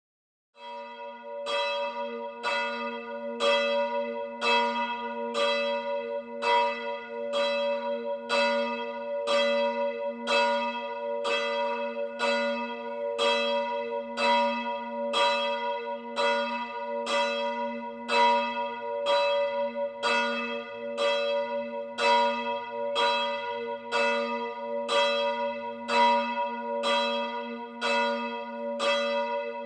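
A single church bell ringing, struck over and over at an even pace of about three strokes every two seconds, starting about half a second in. Each stroke rings out over the hum that carries on from the strokes before.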